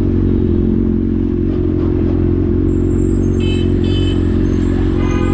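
Honda CB1000R Neo Sports Cafe's inline-four engine running steadily under the rider while cruising, with no marked revving.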